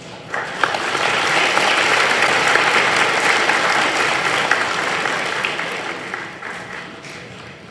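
Audience applause that breaks out about a third of a second in, holds steady, and tapers off near the end.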